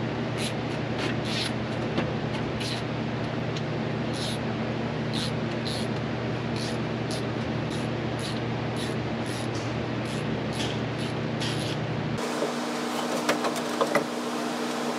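Ratchet wrench clicking in short, irregular strokes on the engine, over a steady mechanical hum that changes abruptly to a higher drone about twelve seconds in.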